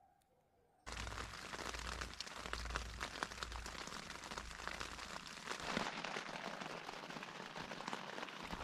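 Rain falling on a tent's fly, heard from inside the tent: a dense, steady patter of many small drops that starts about a second in, with a low rumble under it for the first few seconds.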